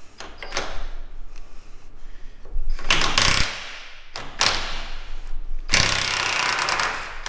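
Cordless impact wrench hammering in four bursts on a seized tailgate bolt, the last burst the longest, as it tries to break the bolt loose against a box-end wrench holding the nut.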